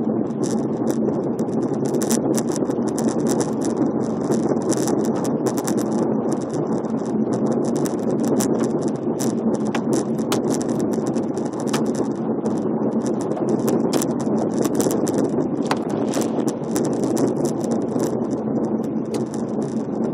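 Car driving through a road tunnel, heard from inside the cabin: steady road and engine noise, with many irregular sharp ticks and clicks throughout.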